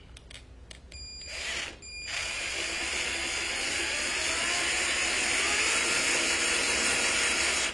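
Drill motor spinning a can-based voice coil former while copper magnet wire is wound onto it, giving a short burst about a second in, then a steady run from about two seconds that cuts off suddenly.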